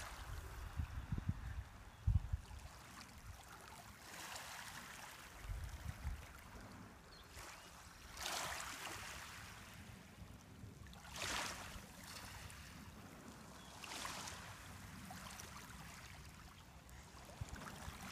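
Small waves lapping faintly on a pebbly shore, a soft wash of water every few seconds. A few low rumbles come near the start.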